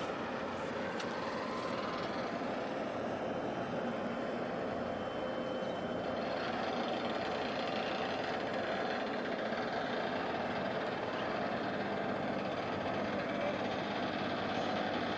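Steady engine rumble under a constant wash of noise, with no breaks or sudden events.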